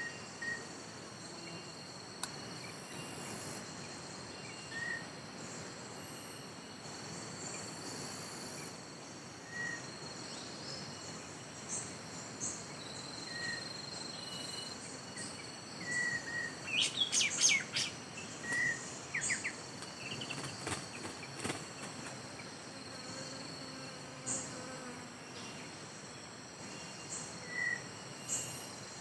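Steady high-pitched insect drone, with short bird chirps every second or two and a flurry of sharper, sweeping bird calls in the middle.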